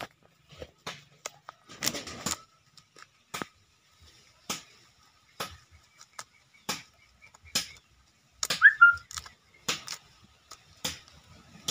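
Feathers being plucked by hand from a dead rail: short dry rips and tugs, irregular, about one or two a second. About eight and a half seconds in, a brief whistle-like chirp rises and falls.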